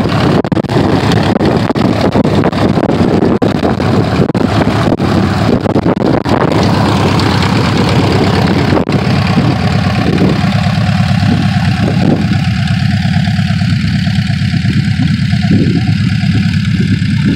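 Small single-engine homebuilt aircraft's nose-mounted engine idling on the ground, propeller turning, in a steady drone. Through the first six seconds or so, wind and bumps buffet the microphone.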